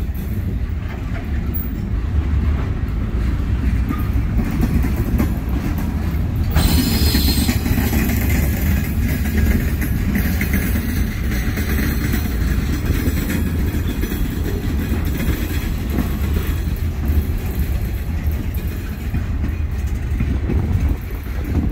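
Ballast train's open-top hopper cars rolling slowly past with a steady low rumble of wheels on rail. About six seconds in, a high hissing screech sets in, typical of wheel flanges grinding on the curve.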